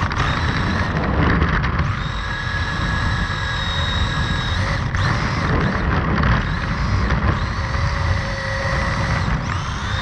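Small 1/16-scale Traxxas RC car's electric motor and gears whining while driving over rough concrete, heard from a camera riding on the car. Loud tyre and vibration rumble runs under the whine, and the whine's pitch shifts slightly with speed.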